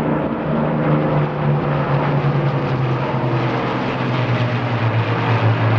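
Two Avro Lancaster bombers flying past, their four-engined Rolls-Royce Merlin drone loud and steady, the engine note dropping slowly in pitch as they go by.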